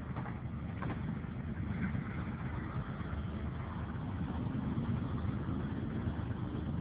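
Deep, steady rumble of approaching GE diesel freight locomotives (AC4400 and ES44AC), slowly growing louder. A car passes close by near the end.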